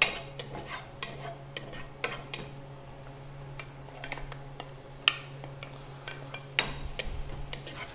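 Chopped onion and garlic sizzling gently in hot oil in a pot as they are sautéed, with sharp taps and scrapes of a wooden spoon against the pan now and then; a faint steady hum runs underneath.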